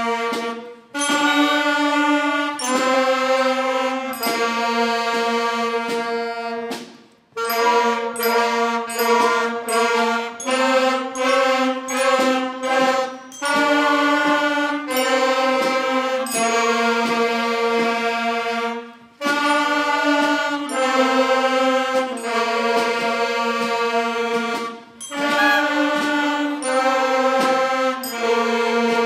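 A student wind band of flutes, clarinets, saxophones and trumpets playing a tune together in held notes, with short breaks between phrases.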